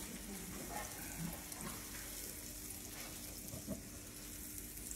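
Butter sizzling with a steady hiss on a hot griddle pan as a silicone pastry brush spreads it.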